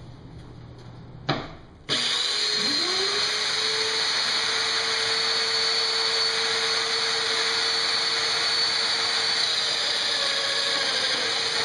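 A Festool Domino joiner switched on, its motor whining up in pitch over about a second and then running steadily together with the rush of the dust extractor hooked to it, while it cuts 8 mm slots in a wooden rail. A single sharp click comes just before it starts.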